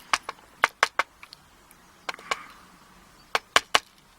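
Sharp little clicks and taps in quick groups of two or three, from the small parts of a dismantled euro cylinder lock (pins and springs) being handled and set down on a hard surface.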